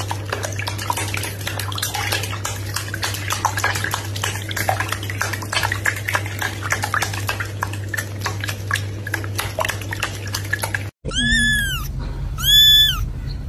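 Crackling and light splashing of a foam-filled bath over a steady low hum, then near the end two short meows from a kitten, each rising and falling in pitch.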